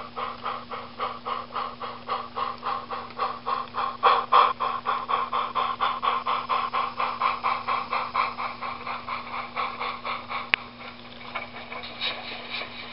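Model steam locomotive sound chuffing in a steady rhythm of about four beats a second over a constant low hum, thinning out after about ten seconds as the engine moves away, with a sharp click shortly after.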